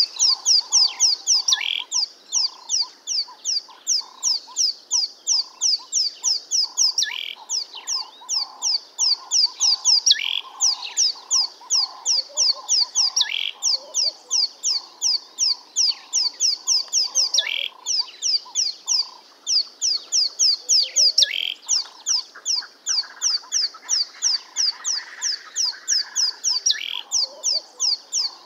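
Small birds chirping: fast, even runs of high chirps, several a second, over a lower pulsing call, with a short falling note every few seconds.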